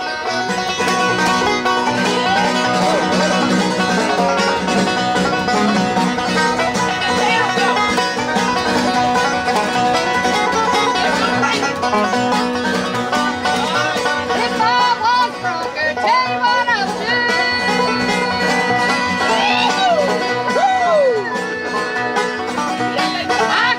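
Live bluegrass band playing, with rapid banjo picking out front over the bass.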